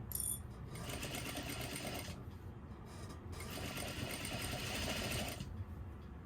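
Electric sewing machine running continuously, its needle stitching rapidly as a seam is sewn through flannel.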